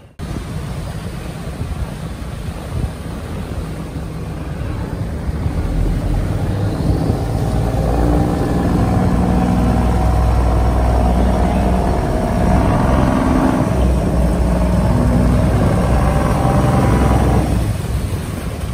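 Diesel engine of a steel cargo boat running as it passes close by. It grows louder over the first half, holds a steady droning pitch, and drops off near the end.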